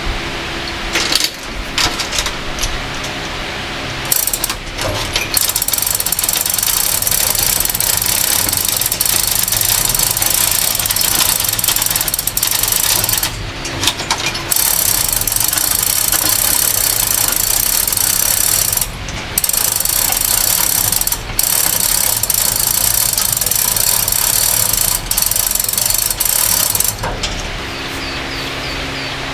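Mechanical tool noise running in long spurts, with a few short breaks, over a steady background hiss.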